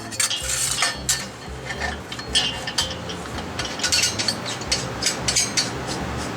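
Titanium sheet being worked by hand: a string of short, irregular metallic scrapes and clinks.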